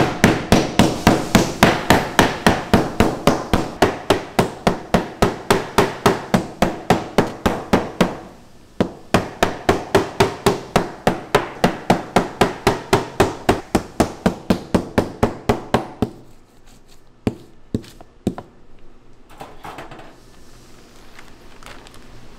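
Pork loin for tonkatsu being pounded flat with a meat mallet on a wooden cutting board: rapid, even strikes, about four a second. There is a short break about eight seconds in, the pounding stops near 16 s, and a few single knocks follow.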